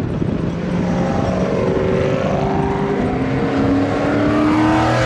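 Car engine running and accelerating, its pitch climbing slowly and steadily.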